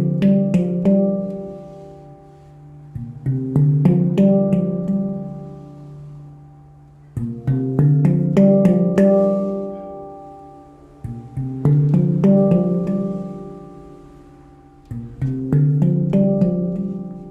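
Handpan, a 14-note D Low Kurd of Ember Steel with added low bass notes, played in phrases of quickly struck notes as low arpeggios. Each phrase rings on and fades away before the next starts, about every four seconds.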